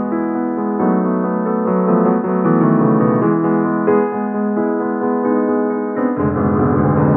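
Digital piano playing a slow hymn-tune prelude in held chords, the harmony shifting about once a second. A deep bass note comes in about six seconds in.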